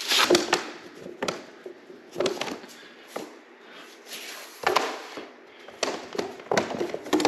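Click-lock floor planks being unlatched and lifted off a concrete subfloor: an irregular run of sharp clacks and knocks, some in quick pairs.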